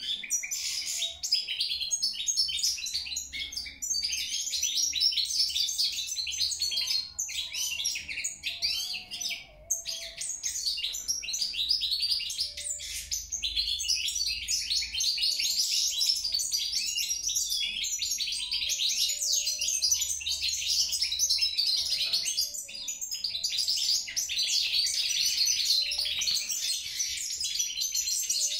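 European goldfinch singing: a long, fast, nearly unbroken twittering song of high chirps and trills, with a short pause about nine seconds in.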